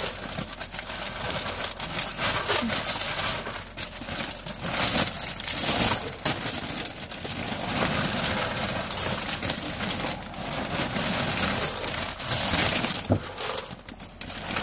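Pelleted horse bedding poured from a plastic-lined sack into a plastic litter tub: a continuous irregular rattle and crackle of pellets, with the plastic bag crinkling.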